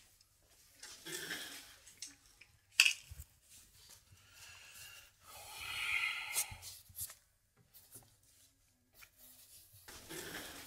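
Rustling and crinkling of an adult diaper being handled, in irregular bursts, with one sharp click a little under three seconds in.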